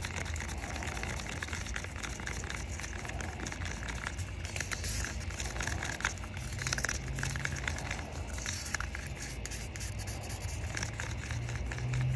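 Wooden stir stick scraping and clicking against the sides of a small mixing cup as pigmented epoxy resin is stirred, in many small irregular scrapes and ticks.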